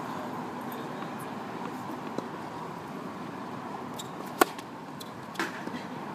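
Tennis serve: one sharp pop of the racket strings striking the ball, followed about a second later by a duller impact of the ball and a couple of small ticks. A fainter tap comes a couple of seconds before the hit.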